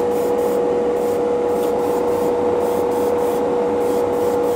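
Airbrush spraying primer, a steady hiss that pulses every half second or so, over a constant motor hum with a steady mid-pitched tone.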